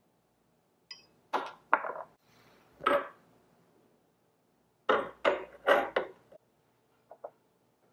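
Tiny stainless steel wok knocking and clanking against a miniature electric coil burner as it is lifted and set back down. The clanks are short and sharp: a few in the first three seconds, then a quick run of four about five seconds in.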